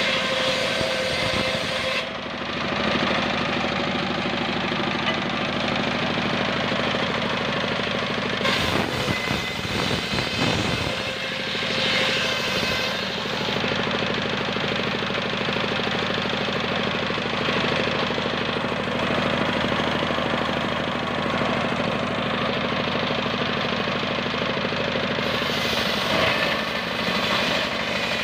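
Stationary single-cylinder diesel engine running steadily under load, driving a homemade circular sawbench. The blade rips through ketepeng wood in several passes, its cutting hiss swelling and easing over the engine's steady knock.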